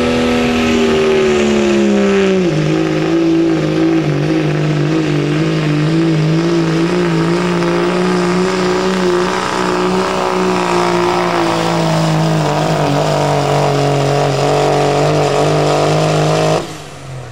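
Second-generation Dodge Ram's Cummins diesel engine at full throttle pulling a weight-transfer sled, a loud steady drone that steps down in pitch a couple of seconds in and holds under load. Near the end it drops away suddenly as the throttle comes off at the end of the pull.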